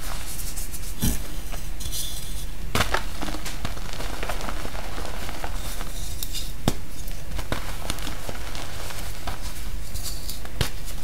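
Hands crushing and crumbling a block of gym chalk in loose chalk powder: soft powdery crunching with a few sharp cracks, over a low steady hum.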